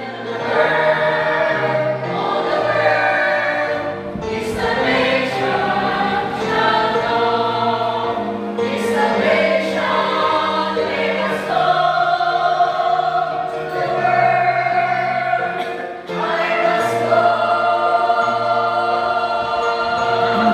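Choral music: many voices singing held chords together, changing every second or two.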